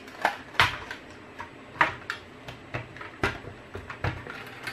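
Metal half-pan tray from a watercolour tin clicking and tapping against a plastic palette as it is handled and fitted into it: several separate sharp clicks and light knocks.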